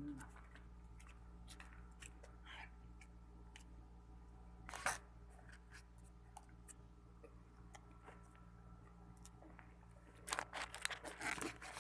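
Faint scattered crunching and crackling from McDonald's french fries being eaten. There is a louder crunch about five seconds in and a quick flurry near the end.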